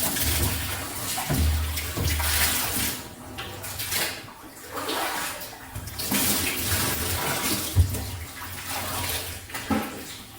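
Water splashing and pouring in a washing machine tub during cleaning, coming in uneven surges with a few low thuds.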